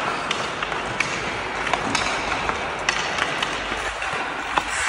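Ice hockey skates scraping and carving on the ice in a steady hiss, with scattered sharp clicks of a stick blade tapping the puck.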